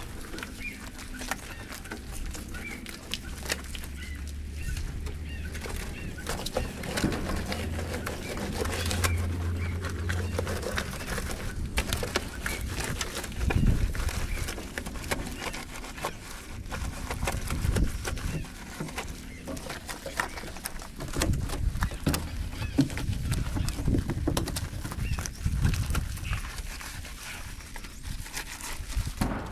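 Hands rubbing and wiping soapy foam over a tractor's painted metal panels and engine, making irregular rubbing and knocking noises, with birds calling in the background.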